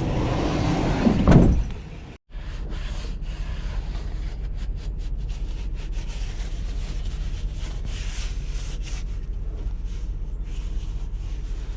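A loud noisy clatter for the first second and a half, then, after a brief drop-out, a vehicle engine running with a steady low hum and scattered light ticks over it.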